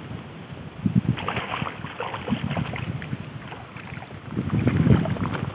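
Wind rumbling on the microphone over small waves lapping and sloshing in shallow water, with water splashing around a hand and boots and scattered short knocks of handling.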